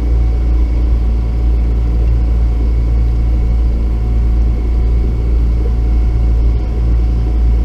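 Boat motor running steadily under way: a loud, even low rumble with a steady hum.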